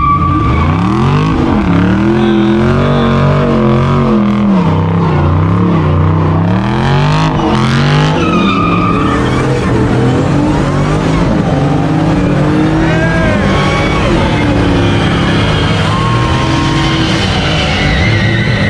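A car doing a burnout: its engine revs up and down over and over at high revs while the spinning tires squeal.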